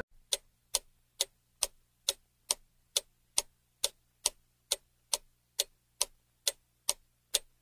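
Clock-ticking sound effect used as a countdown timer for guessing: a steady tick a little more than twice a second.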